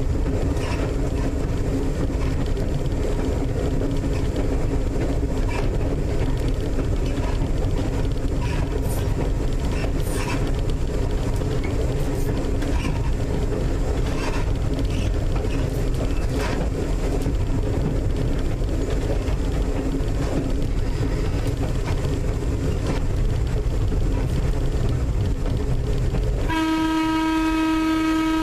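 North Shore Line 749 electric interurban car running along the track, a steady rumble and hum with occasional sharp clicks from the wheels. About two seconds before the end its air horn sounds a single steady blast, the warning for a grade crossing just ahead.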